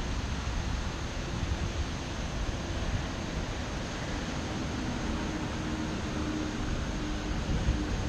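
Typhoon wind blowing in a steady rush, buffeting the microphone with a low rumble. A faint steady hum joins about halfway through.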